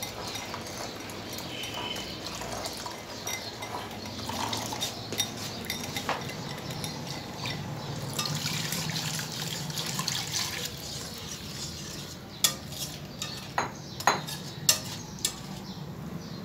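A spoon stirs custard powder and milk in a glass bowl, then the custard mix is poured into a pan of vermicelli cooking in milk and stirred. Near the end a spoon strikes the aluminium pan in several sharp clinks.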